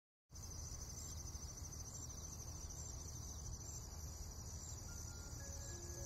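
Steady chorus of chirping crickets over a low hum. A few soft held music notes come in near the end.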